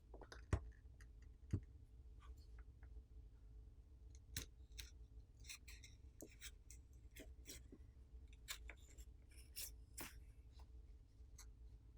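Plastic pry tools clicking and scraping around the edge of a smartphone's glass back plate, working it loose from the adhesive underneath. Faint, scattered scratches and ticks, with two sharper clicks in the first couple of seconds.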